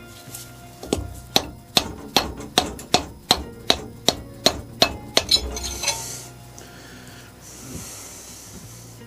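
Hammer tapping a cylinder barrel loose on a VW air-cooled engine: about a dozen sharp, evenly paced blows, roughly two and a half a second. Near the end come a few softer scraping sounds.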